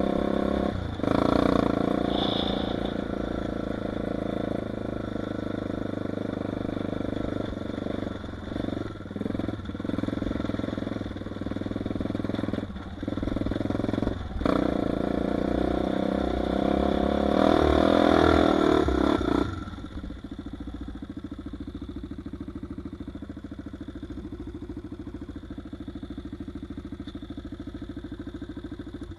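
Honda 400EX ATV's single-cylinder four-stroke engine revving hard under throttle while riding, with brief drops off the throttle now and then. About two-thirds of the way in it settles to a steady idle.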